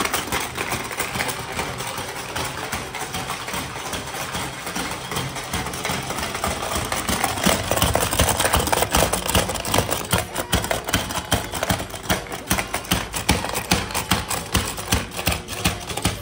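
Rapid plastic clattering of a Hungry Frog marble game: several players hammering the frogs' levers, the frogs' heads snapping out and plastic marbles rattling around the tray. The clatter gets louder and busier about halfway through.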